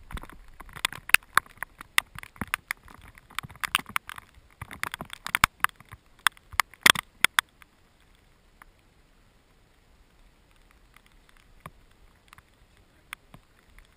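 Irregular sharp taps and rustling right at the camera. They come thick and fast for the first seven seconds or so, then only a few scattered taps.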